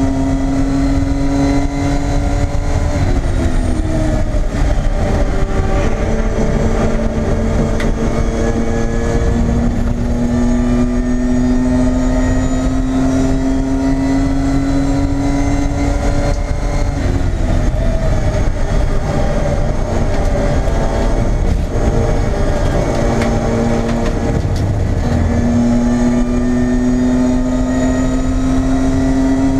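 BMW E30 race car engine at racing speed, heard inside the stripped cabin over a constant rumble of road and wind noise. The engine note climbs slowly through long pulls and falls away sharply about three seconds in and again past halfway, as the car slows and changes down for corners.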